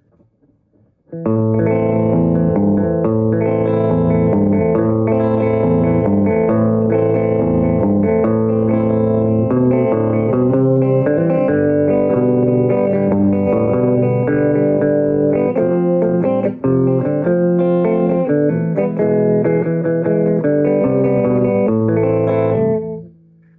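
Electric guitar, on its middle pickup position, played through a hand-built single-ended 6L6 tube amp with a 6SL7 preamp and its negative feedback switched in. Playing begins about a second in, runs steadily and stops shortly before the end, leaving a low amp hum.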